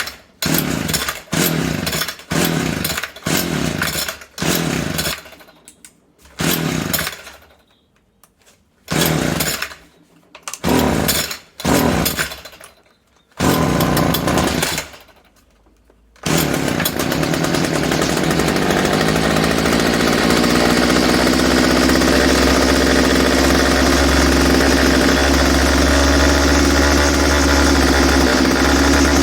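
Homelite small two-stroke string trimmer engine being pull-started on its recoil starter: about a dozen short pulls, roughly one a second with a few pauses, then it catches about halfway through and keeps running, its speed rising for a few seconds and then holding steady. This is a test start with choke on after the carburetor's diaphragm and spacer were refitted in the correct order; the carburetion fault is still there.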